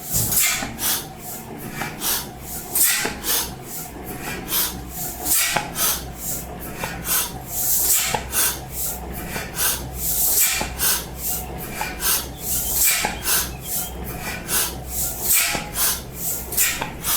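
Slide-valve (Schieber) single-cylinder stationary engine running slowly: an even rasping beat at about three strokes a second over a low hum.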